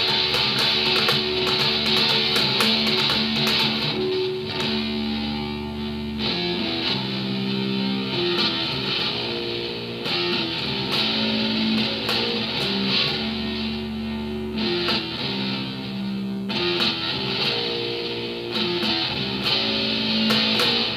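Four-string electric bass guitar played fingerstyle, a changing line of held notes, heard together with other music that includes guitar. A brighter, fuller layer drops out and comes back several times.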